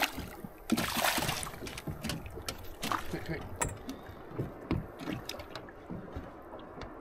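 A hooked snapper splashing at the water's surface beside the boat, loudest about a second in, followed by smaller splashes, water sloshing and scattered light knocks against the hull.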